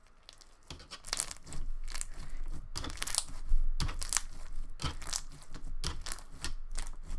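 Glossy foam-bead slime being squeezed and kneaded by hand, popping and crackling in quick, irregular bursts as trapped air bubbles break. The popping starts under a second in and keeps on densely.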